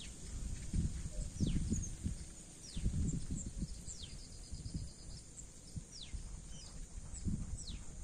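Outdoor ambience by a shallow stream: irregular low rumbles of wind buffeting the microphone, a bird's short falling whistled calls repeated about once a second, and a steady high hiss.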